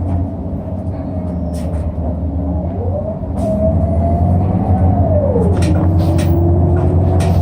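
City bus heard from inside: a steady engine rumble with rattles and clicks from the cabin. A whine rises about three seconds in, holds, then drops again about two seconds later, and the sound grows louder as it rises.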